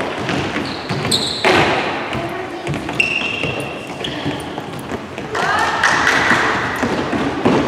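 Children's footfalls and landings thudding on a sports-hall floor as they run and jump over low hurdles, echoing in the large hall, with brief high squeaks and children's voices.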